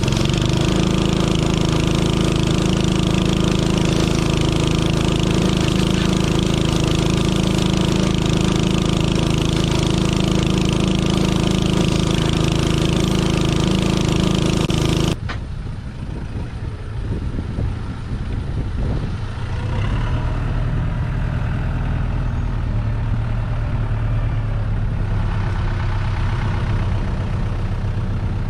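Tractor engine running loud and steady; about halfway the sound cuts off abruptly and gives way to a quieter, lower engine idling.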